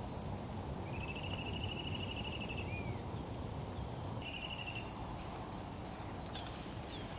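Small songbirds singing: several short, rapid trills and a few quick upward chirps, over a steady low background hiss.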